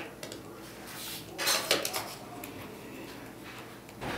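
Screwdriver and small plastic parts clicking and clinking as the hinge is screwed into a new plastic monitor base. There are a few light clicks and a louder cluster about a second and a half in.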